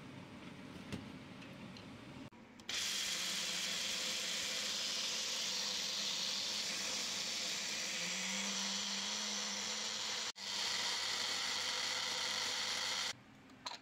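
Small personal blender grinding yellow split peas: the motor starts about two and a half seconds in with a loud, steady whir, cuts out for an instant and picks up again, then stops shortly before the end.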